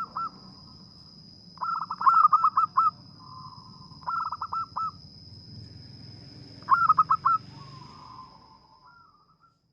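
A zebra dove (local perkutut) sings three bursts of quick staccato coos, a couple of seconds apart, each ending in softer trailing notes. A steady high-pitched whine sounds behind them and fades away near the end.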